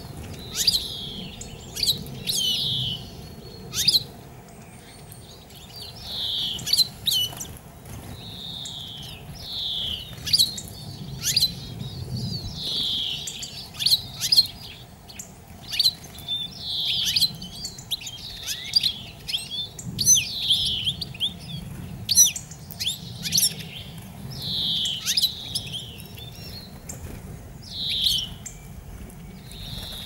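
Small songbirds calling repeatedly at a seed feeder: short, falling chirps about every second or two, with sharp ticks among them.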